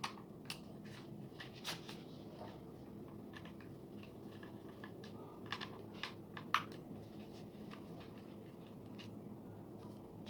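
Scattered small clicks and taps of hands working on a quadcopter, handling its plastic parts and small tools, the sharpest about six and a half seconds in, over a faint steady hum.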